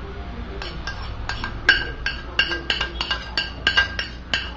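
A spoon knocking and scraping against a glass plate, making a quick, irregular run of ringing clinks, about three a second, as diced ham and cheese are scraped off into a pot.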